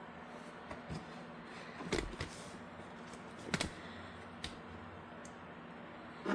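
Small hardware being handled: a few scattered light clicks and taps, the clearest about two seconds and three and a half seconds in, over a faint steady hum.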